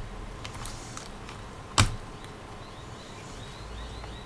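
Handling of a laptop battery pack and its connector: a few light plastic clicks and taps, with one sharp, much louder click a little under two seconds in.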